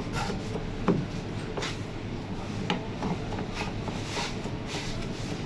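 Chef's knife chopping tomatoes on a plastic cutting board: a series of irregular knocks of the blade on the board, the loudest about a second in, over a steady background rumble.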